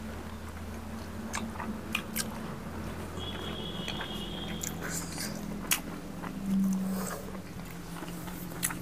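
Two people chewing mouthfuls of rice and pork eaten by hand, with scattered small mouth clicks.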